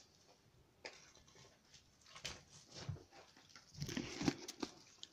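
Fireworks boxes and firecracker packs being handled and set down on an upholstered sofa: scattered light knocks and rustles, with a cluster of them about four seconds in.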